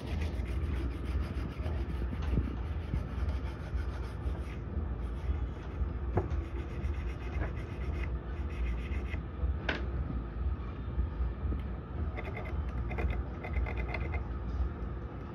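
Small brush scrubbing the burnt solder side of an EV charger's circuit board, a dry scratching, with a couple of sharp ticks.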